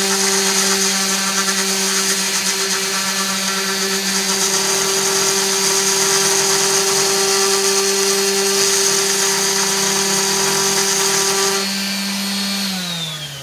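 Corded orbital sander running steadily as it rounds and smooths the edge of a wooden table top, a steady motor hum with sanding hiss. Near the end it is switched off and winds down, its pitch falling away.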